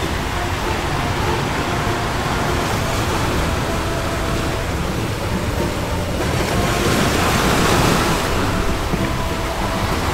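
Sea waves and wind: a steady rushing wash with a low rumble beneath. A louder wave rush swells about six seconds in and eases off a couple of seconds later.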